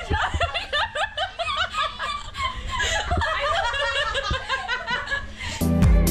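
People laughing and giggling in short bursts, with a few dull thumps; near the end, electronic dance music with a heavy beat cuts in.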